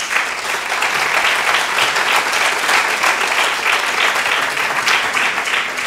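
Audience applauding. The clapping starts abruptly and thins out near the end.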